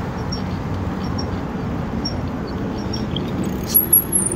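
A heavily loaded bicycle towing a trailer rolls along pavement with a steady rumble of tyres and road noise. Near the end, as it pulls up at the corner, there are a few sharp clicks and brief high-pitched metallic jingles.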